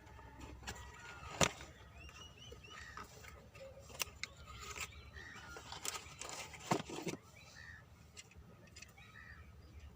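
A few sharp clicks and knocks, such as handling of the microphone and its packaging, over a low background with faint bird chirps scattered through it.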